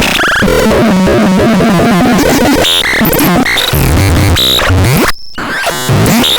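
Loud, chaotic electronic sounds: a dense jumble of rapidly shifting glitchy tones, sweeps and noise, cutting out abruptly for a moment about five seconds in before resuming.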